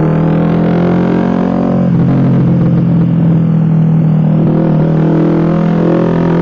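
Suzuki GSX-R150's single-cylinder engine through an aftermarket racing exhaust, running at a steady speed with a constant low drone.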